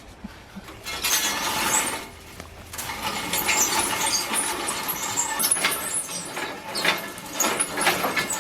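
Fence wire being unwound and pulled out by hand: rustling with many scattered metallic clicks and short squeaks, starting about a second in, pausing briefly, then running on.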